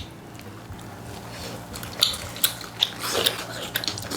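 Close-up eating sounds: biting and chewing food, with sharp wet smacks and clicks that come thick from about two seconds in.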